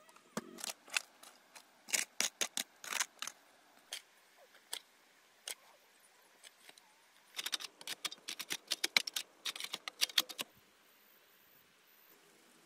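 A metal hoe chopping and scraping in hard clay soil, with clods knocking and rattling. The strikes come in two busy spells with a few scattered ones between, and stop a couple of seconds before the end.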